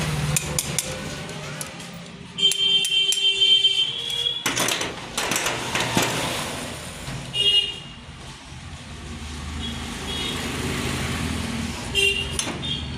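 Vehicle horns honking amid passing traffic: one long honk about two and a half seconds in, shorter beeps near the middle and near the end, with a loud rush of a vehicle going past in between. A few light clicks come early on.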